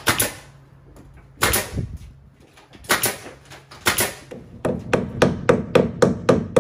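A nail gun fires four single shots about a second and a half apart, nailing wood boards to a wall frame. Near the end a hammer taps rapidly, about six strikes a second, driving a staple that holds an electrical cable to a wooden joist.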